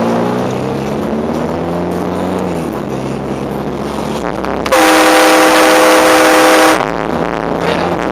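Air-powered train horn on a 2006 Scion xB sounding one loud blast of about two seconds: a chord of several steady tones that cuts off sharply. Before the blast, the car's engine rises in pitch as it accelerates, then drops.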